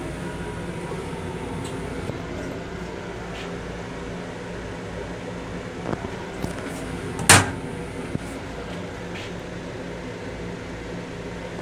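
Steady hum of an M7 electric railcar heard from inside its small restroom, a drone with a few steady tones. A few light clicks come about six seconds in, and one sharp loud bang about seven seconds in.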